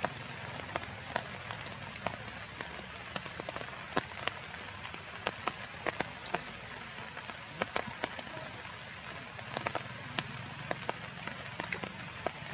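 Steady rain falling through foliage: a constant hiss with many sharp, irregular ticks of heavier drops hitting leaves.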